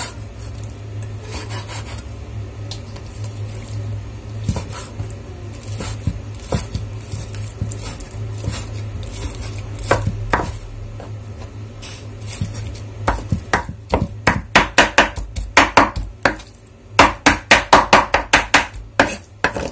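A kitchen knife chopping raw chicken fillet on a wooden cutting board, mincing it. The strokes are sparse at first, then become rapid, even chops of about four a second through the second half.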